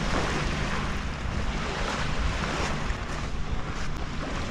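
Small Lake Michigan waves lapping and breaking on a sand-and-pebble shore, with wind buffeting the microphone and a steady low hum underneath.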